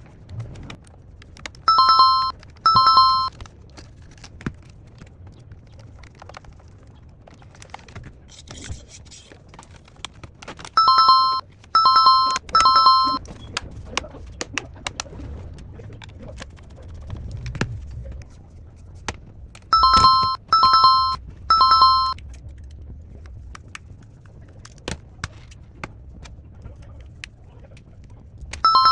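Electronic beeps, each about half a second long, coming in short groups of two or three roughly every nine seconds, with small clicks and a low hum in between.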